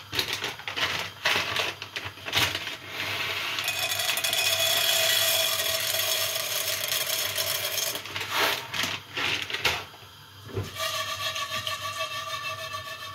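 Plastic bag rustling, then dried popcorn kernels poured from it into a pot of oil and melted sugar, pattering in a steady stream for about four seconds. Near the end the pot is moved and shaken on the gas burner's grate.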